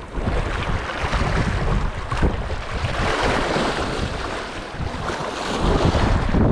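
Sea waves surging and washing over a rock, with wind buffeting the microphone. The wash swells about three seconds in and again near the end.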